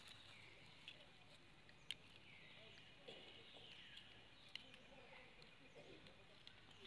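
Near silence: faint outdoor ambience with faint high chirping and a few soft clicks.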